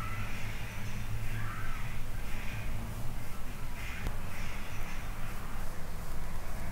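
Several short, harsh animal calls, about one a second, like a bird's caws, over a steady low hum.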